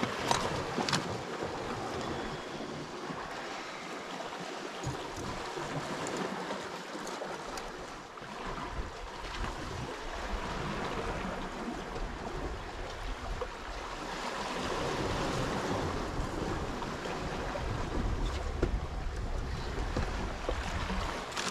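Sea surf washing against a rocky shore as a steady hiss, growing heavier and deeper in the second half, with a few small clicks near the start.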